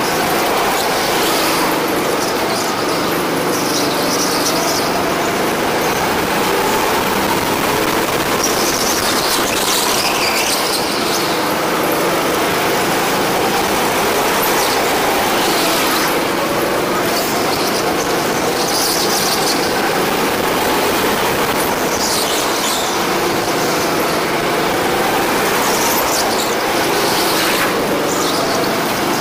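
Go-kart engine running under load, its pitch rising and falling as it speeds up and slows, with tyres squealing in short bursts several times.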